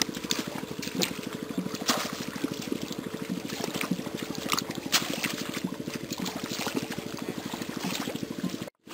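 Feet splashing and sloshing through shallow muddy water, in irregular strokes, over a steady fast low pulsing.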